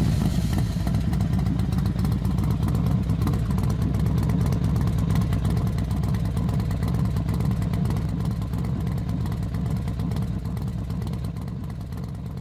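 Motorcycle engine running steadily at constant revs with a fast pulsing rumble, slowly fading toward the end.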